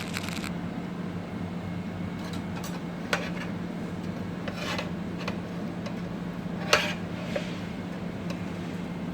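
Metal utensils scraping and clinking against cookware, with a handful of short sharp clinks, the loudest about two-thirds of the way through, over a steady low hum.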